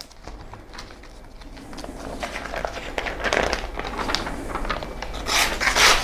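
Knife blade slicing through a glossy magazine page, with the paper rustling and scraping; the sound grows louder and is strongest near the end. It is a paper-cut test of the edge just honed on a ceramic rod.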